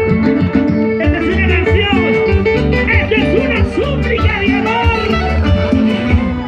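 Loud live band music with plucked guitar over a steady bass line, recorded among the crowd.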